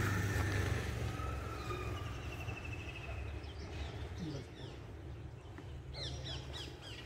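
Birds calling and chirping over a steady low rumble, with a rapid trill a couple of seconds in and a quick run of falling chirps near the end.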